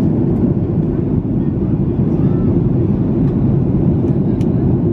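Steady roar of a Boeing 737 jet airliner's engines and rushing air heard from inside the passenger cabin in flight, with a few faint clicks from the cabin.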